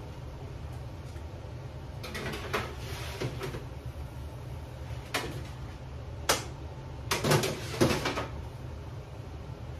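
Baking trays going into an electric range's oven and the oven door shutting: a scrape, a click, then a sharp knock and a cluster of metallic clanks about seven to eight seconds in, the loudest near the end. A steady low hum runs underneath.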